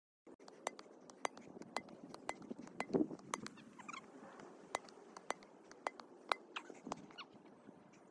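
Irregular sharp clicks and ticks over faint outdoor background noise, with a louder dull thump about three seconds in.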